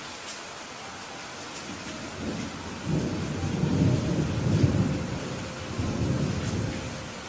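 Steady rain falling, with a rolling thunder rumble that builds about two seconds in, peaks for a few seconds and dies away near the end.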